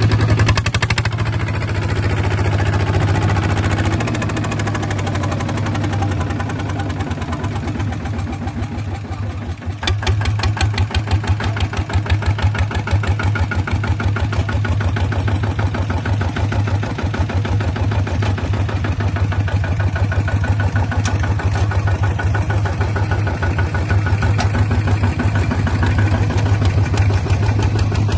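Small bulldozer's engine running steadily with an even, rapid firing beat; about ten seconds in it sags briefly, then picks up and runs louder.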